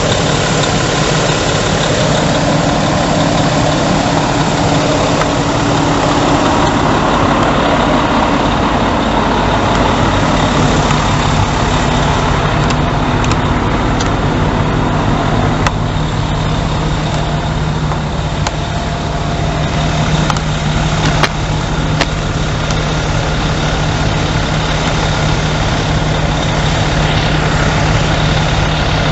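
Engine idling steadily at close range, a constant low hum with heavy noise over it.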